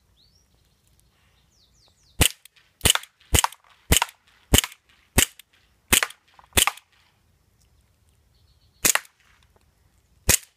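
CO2-powered full-metal airsoft 1911 pistol firing. It fires a run of eight sharp cracks, about two a second, starting about two seconds in, then two more single shots spaced well apart near the end.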